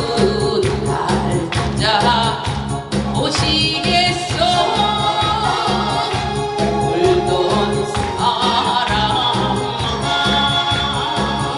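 A woman singing a Korean trot song into a microphone over musical accompaniment with a steady beat.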